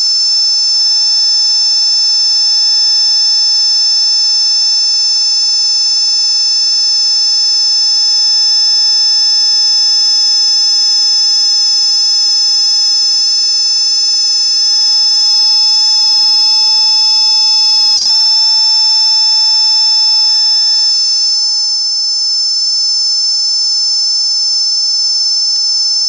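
Giant forest cicada (Pycna semiclara) calling: a loud, steady screaming whine of several held tones, unbroken apart from a momentary break about eighteen seconds in.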